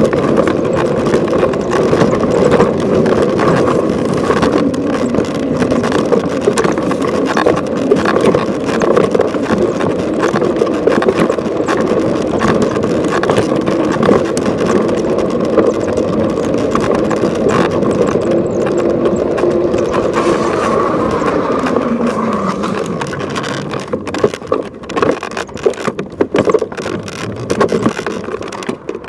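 Land Rover's engine running as it drives, heard from inside the cab. Its pitch falls and it gets quieter about 21 to 23 seconds in as it slows, leaving uneven rattles and clicks near the end.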